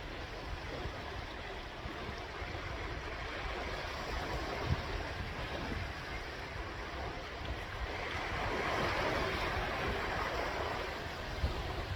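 Sea waves washing ashore, a steady rushing wash that swells louder about eight seconds in and eases near the end.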